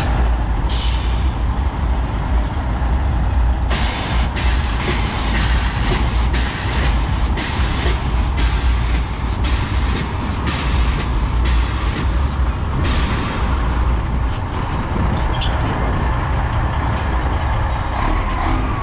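Heavy diesel semi-truck engine idling with a steady low rumble, joined in the middle by a run of short air hisses about twice a second for roughly nine seconds.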